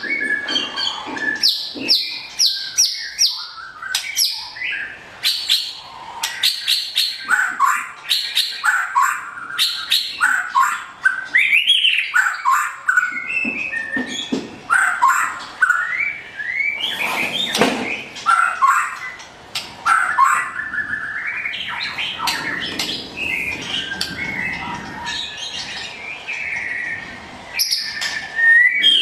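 White-rumped shama singing a long, varied song: fast runs of repeated notes, rising and falling whistles and sharp clicking calls, with hardly a pause.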